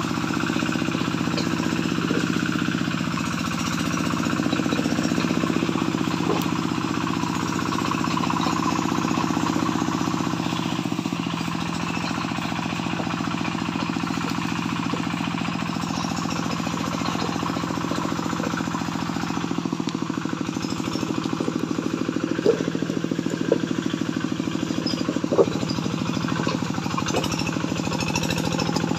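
Small homemade tractor's engine running steadily with a fast knocking beat while hauling a load of timber planks. A few sharp clunks come near the end.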